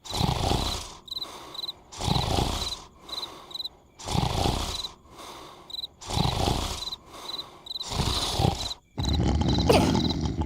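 Cartoon snoring: a loud rasping snore about every two seconds, each followed by a few short high chirps. Near the end the rhythm breaks into a steadier low rumble with a quick rising squeak.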